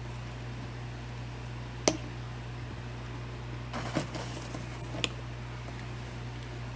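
Three sharp clicks, about two seconds, four seconds and five seconds in, with a short rustle around the middle one: small toiletry items and packaging being handled and set down. A steady low hum runs underneath.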